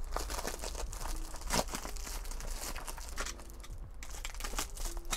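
Brown paper parcel wrapping and packing tape crinkling and tearing as the parcel is cut and ripped open with a utility knife, a dense run of small crackles with one louder crack about a second and a half in.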